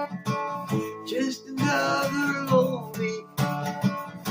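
Acoustic guitar strummed as song accompaniment, with no sung words.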